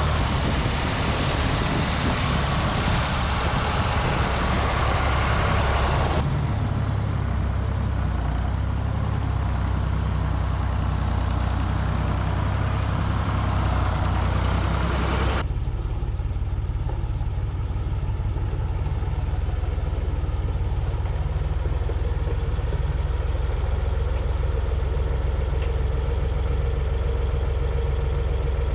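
Ford 4000 diesel tractor engine running steadily as the tractor is driven, a low drone. Its tone shifts abruptly twice, about six and fifteen seconds in.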